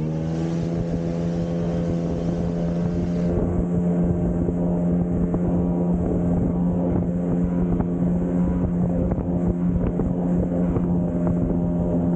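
Jet ski engine running at speed, a steady drone that picks up slightly just after the start and then holds, with rushing water and wind noise on the microphone.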